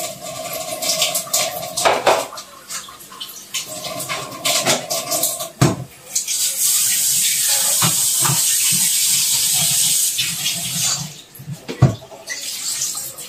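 Kitchen tap running into the sink for about four seconds in the middle, a steady hiss of water. Before and after it, scattered knocks and clatter of containers being handled at the sink.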